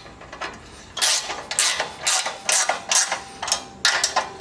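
Ratcheting spanner tightening a nut on a steel U-bolt, its clicks coming in quick strokes about three a second from about a second in.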